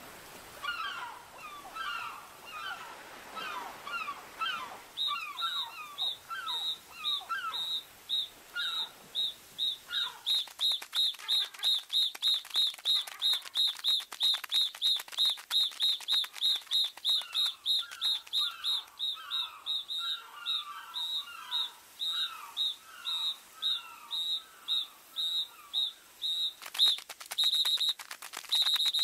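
Birds chirping in short falling calls. About five seconds in they are joined by a high, rapid pulsing chirp that repeats two to three times a second.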